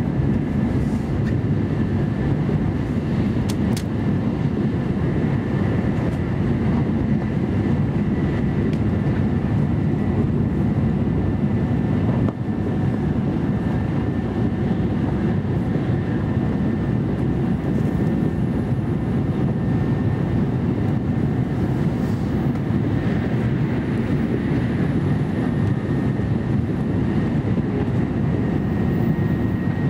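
Steady rumbling running noise heard inside the cabin of an N700A Shinkansen travelling at speed, with a faint steady high whine above it.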